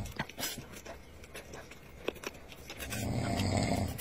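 A man snoring, a low snore building from about three seconds in and running about a second and a half, with the tail of the previous snore at the very start. Small clicks of eating and chewing fall in between.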